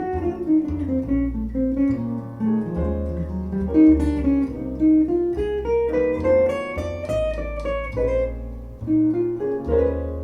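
Instrumental break of a jazz vocal recording: a guitar solo line over bass, played back through Kef LS50 bookshelf speakers. The melody dips low, climbs to a high point about seven seconds in, then falls again.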